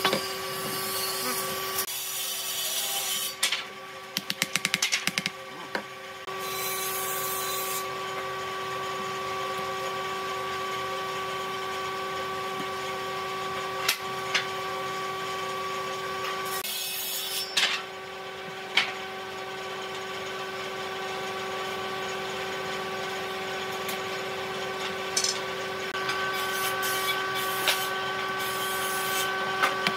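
Hand work on pine blocks: a hand tool scraping the wood, with a quick run of strokes early on and a few sharp knocks. Near the end comes a fast run of clicks as trigger bar clamps are ratcheted tight onto the blocks. A steady hum runs underneath.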